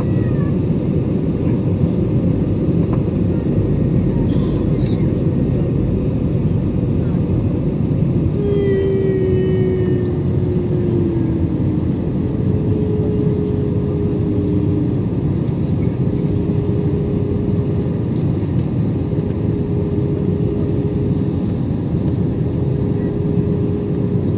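Airliner cabin noise at a window seat during descent: the steady deep rush of the jet engines and airflow. About eight seconds in, a humming tone comes in, sliding slightly down and then holding steady.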